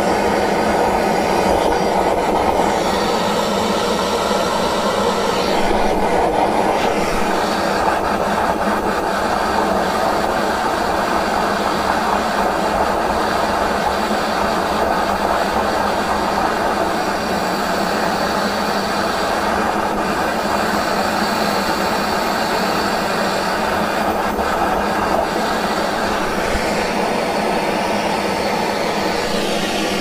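Handheld gas torch burning with a steady hiss as its blue flame plays on a brass-cased padlock, melting the lock's body.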